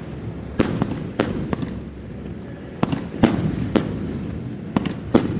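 Fireworks going off: about eight sharp bangs at uneven intervals, some in quick pairs, with a steady rumble and crackle between them.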